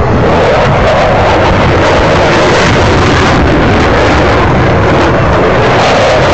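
Loud, steady jet engine noise from a military jet aircraft flying past, drowning out the announcer.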